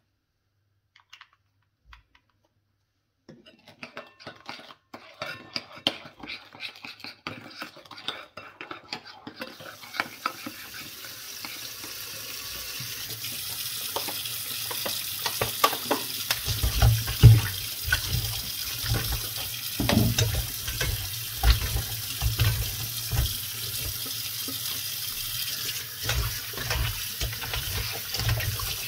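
Kitchen work: a utensil clicking and scraping against a pot or pan. About ten seconds in, a steady rushing hiss builds up, with repeated heavy knocks over it.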